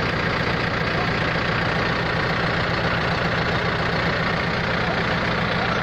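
Diesel farm tractor engine idling steadily, close by.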